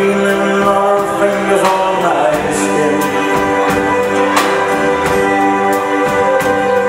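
Live band playing a song: electric bass, acoustic guitar and drums with cymbal hits under long held sung notes.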